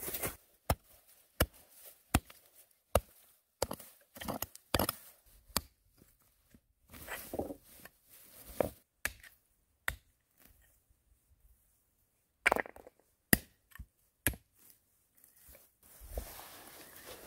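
Hatchet chopping into grassy soil around a half-buried stone: at first a sharp strike about every 0.7 seconds, then irregular chops and scraping of dirt and rock as the stone is dug and pulled loose.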